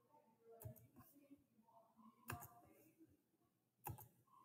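Three faint computer mouse clicks about a second and a half apart, over near silence.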